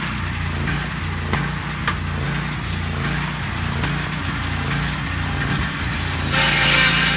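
Engine of a Lucas Mill swing-blade sawmill running steadily, with two light clicks in the first two seconds. About six seconds in, the circular blade bites into the log and the sawing hiss of the cut comes in, much louder.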